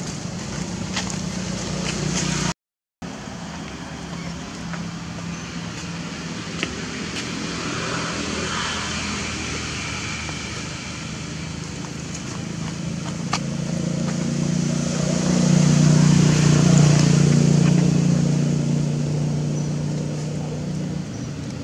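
A motor vehicle's engine running close by, a low steady hum that swells about two-thirds of the way through and then eases off. There is a brief dropout to silence about three seconds in.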